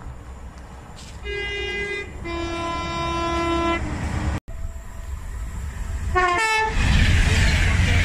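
Train two-tone horn: a higher note for under a second, then a longer lower note lasting about a second and a half. After a break, a second train gives a quick two-note horn and rushes past at speed, its loud rush of wind and wheels filling the last second or so.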